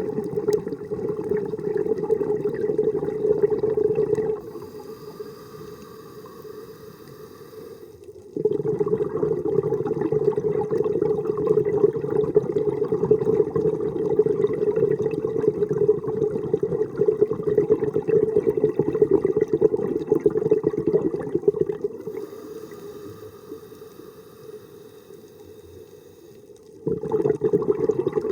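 Scuba diver's exhaled bubbles from a regulator gurgling underwater in long loud bursts. Between them come quieter spells of hiss, about four seconds in and again a few seconds before the end.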